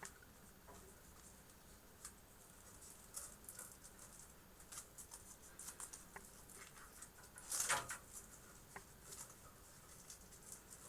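Soft handling noises of power supply cables being bundled and tucked into a computer case: scattered light clicks and rustles, with a louder rustle about seven and a half seconds in.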